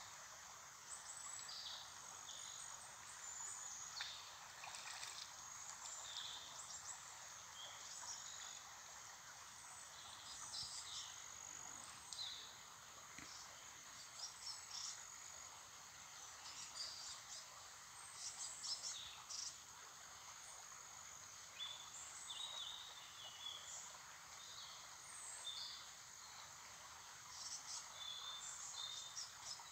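Faint forest ambience: a steady high insect drone, with many short bird chirps scattered through it over a soft background hiss.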